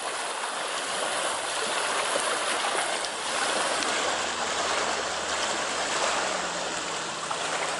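Steady rushing noise, with the faint low hum of a distant boat engine, a 140 hp Mercruiser sterndrive, coming through in the middle for a few seconds.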